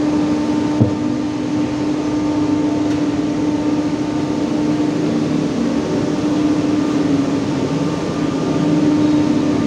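Steady machine hum with one constant low tone, with a single short knock about a second in.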